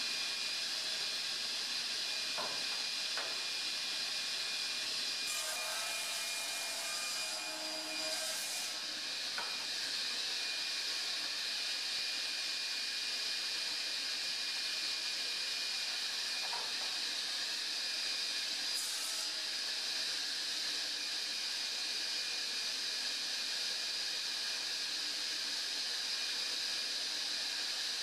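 Sliding table panel saw running idle while the board is set up, with no wood being cut: a steady hiss with a high whine. A few short rushes of louder hiss come in around a quarter of the way in and again past the midpoint.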